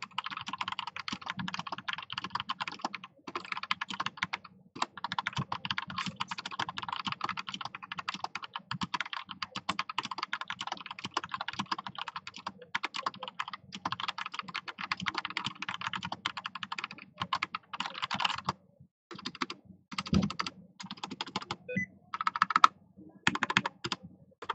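Anne Pro RGB 60% mechanical keyboard with Gateron Brown tactile switches being typed on: a fast, continuous run of key clicks that thins out after about 18 seconds into scattered keystrokes, with a few louder strokes near the end.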